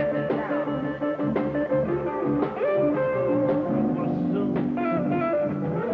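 Live blues band playing: amplified harmonica blown into the vocal microphone in long held, bending notes and chords over guitar.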